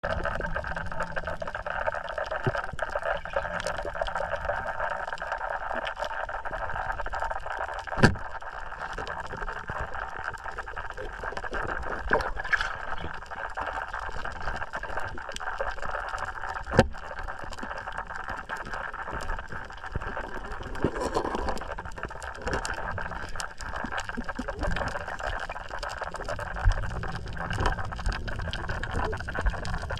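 Water sounds: a steady rushing wash with a constant fine crackle, broken by a few sharp knocks, the loudest about eight seconds in and again about seventeen seconds in.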